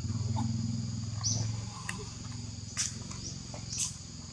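A steady low buzzing drone under a continuous high insect-like whine, with a few short high squeaks from macaques breaking in now and then.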